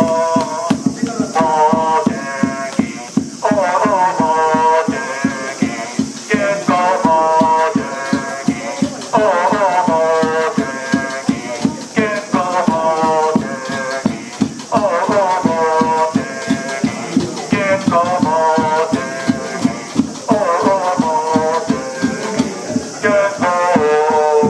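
Football supporters chanting a sung player chant in unison over a fast, steady drum beat. The sung phrase repeats about every two seconds.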